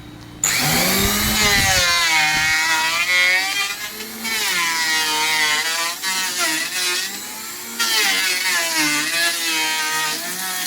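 An electric power tool cutting wood, its motor pitch sagging and recovering as the load on the cut changes. There are a few low knocks in the first couple of seconds.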